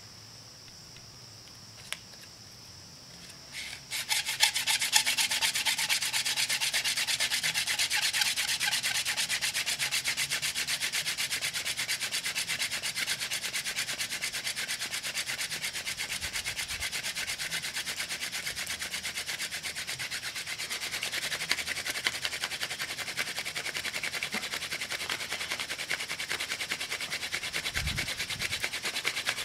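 Wooden hand-drill spindle spun back and forth between the palms, its tip grinding in the notch of a wooden fireboard to make friction-fire dust. The dry rubbing starts about four seconds in and keeps up in a fast, even rhythm.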